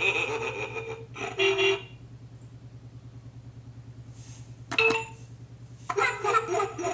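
Electronic beeping tones from a Peppa Pig phonics learning toy's small speaker over a steady low buzz. About five seconds in a sharp button click sets off a short tone, and the toy's recorded voice starts near the end.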